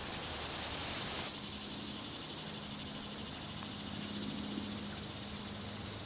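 Cicadas droning in a steady, high, even buzz, with a brief high chirp about three and a half seconds in.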